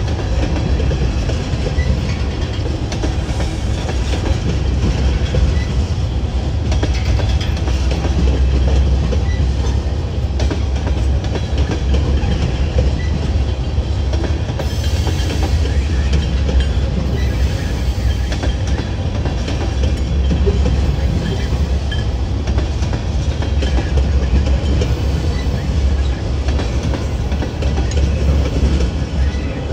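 Freight train cars rolling past on the rails with a steady rumble.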